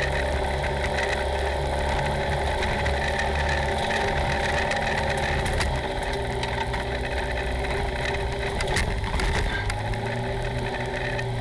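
Polaris RZR side-by-side's engine running at low trail speed, heard from inside the open cab, its low note shifting with the throttle. Scattered rattles and knocks of the machine over rough ground come through, with a cluster about nine seconds in.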